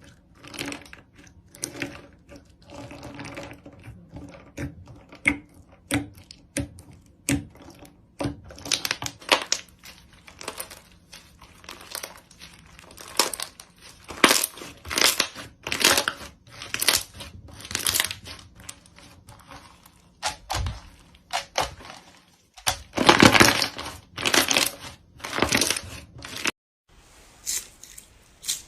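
Hands squeezing and stretching slime: a string of irregular crackly squishes and pops, with a longer, louder run of crackling a little past the middle.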